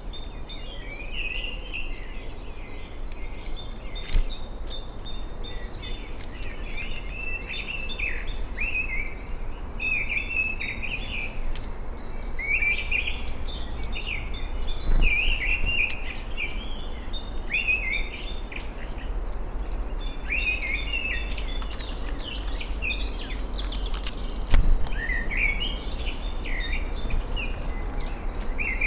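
Several woodland songbirds singing and calling over one another in short warbling phrases, with a thin high note repeated again and again, a few sharp ticks, and a steady low background rumble.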